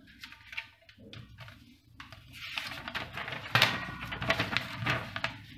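Paper rustling as a hand picks a folded paper slip out of a stainless steel bowl, then louder crinkling from about two seconds in as the sheet is unfolded.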